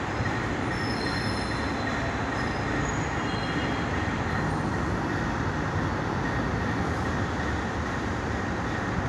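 Steady background noise with a few faint high whistling tones in the first few seconds.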